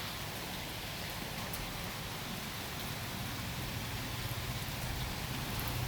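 Steady rain falling and hitting surfaces, a continuous even hiss.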